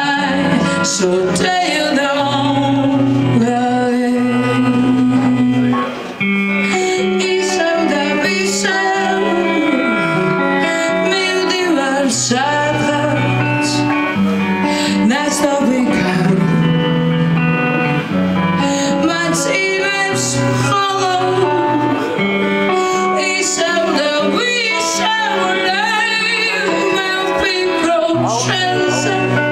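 A woman singing with a live band: electric guitar and drums under a held low bass line, the melody sung in long phrases.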